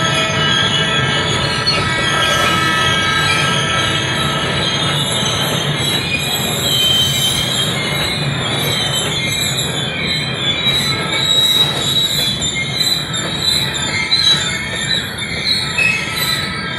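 Loaded freight wagons rolling through a curve, their steel wheels squealing against the rails in several high held tones over a steady low rumble. The squeal is flange and wheel-tread friction from the cars negotiating the curve.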